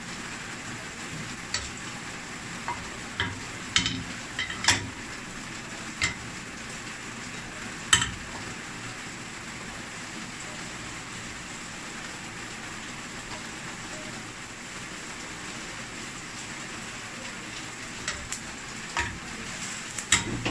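Cooking oil heating in a stainless steel pan on medium heat: a steady low hiss, broken by scattered sharp clicks and pops, bunched in the first several seconds and again near the end.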